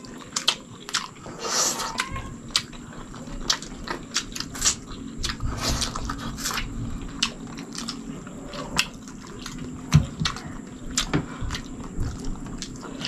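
Close-miked mukbang eating: wet chewing, lip smacks and sharp mouth clicks as two people eat chicken sinigang and rice with their fingers. There are two longer wet sucking sounds, about two and six seconds in.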